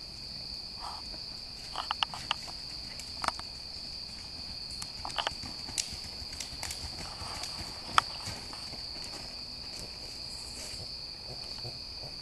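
A steady, high-pitched insect chorus, with scattered irregular knocks and thuds from a horse's hooves, the sharpest about eight seconds in.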